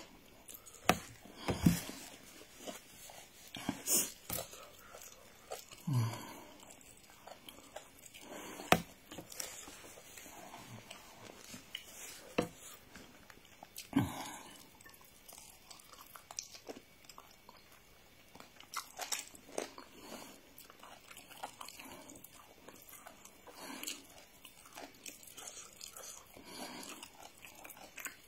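Close-up eating sounds: crunchy bites into a crisp fried piece of food, with chewing and lip smacks between them and a few louder crunches.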